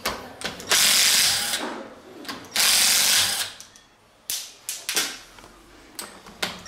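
Pneumatic shop tool, working on a scooter engine: two bursts of hissing about a second each, one near the start and one near the middle, with sharp metal clinks of tools between them and a third burst starting at the very end.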